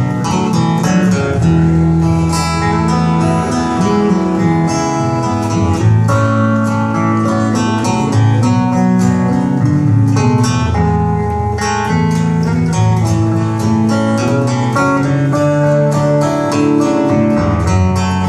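Live country music: an acoustic guitar strummed over steady low notes in the instrumental introduction of a song, with no singing yet.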